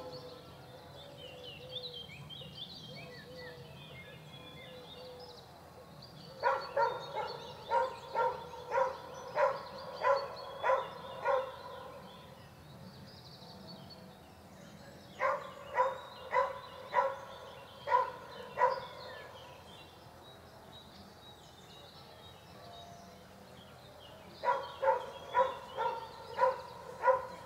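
A dog barking in three bouts of evenly spaced barks, about two a second, each bout lasting a few seconds. Small birds chirp in the first few seconds.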